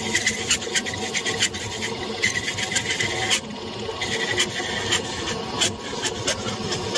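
A metal lathe is running while the cutting tool turns a brass rod. The cut makes a steady rasping hiss, with irregular sharp clicks from the chips.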